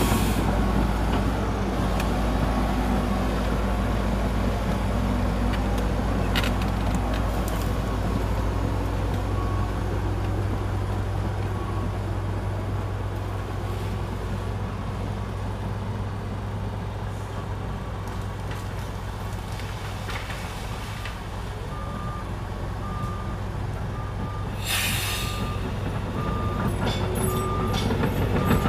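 Heavy diesel earthmoving machinery running steadily, easing off mid-way and picking up again near the end. About four seconds from the end comes a short hiss of an air brake, and after it a vehicle's reversing alarm beeps at an even pace.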